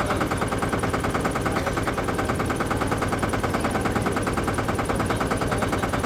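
Motorboat engine running steadily with a rapid, even putt-putt of firing strokes.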